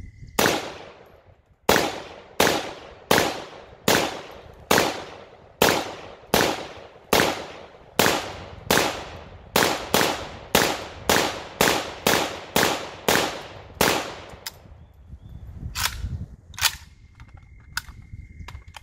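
AK-47 pattern rifle in 7.62x39 fired semi-automatically: about twenty shots at a steady pace of roughly one every 0.7 seconds, with a short pause before the last two. Each shot rings out with an echo.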